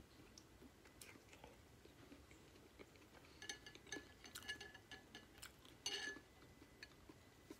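Faint clinks of a metal fork against a glass bowl, a few together around the middle and one more near the end, with quiet chewing.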